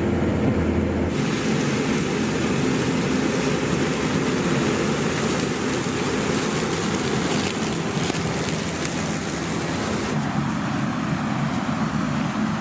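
Combine harvester running steadily, a low engine hum throughout. A rushing hiss comes in abruptly about a second in and drops out near the end.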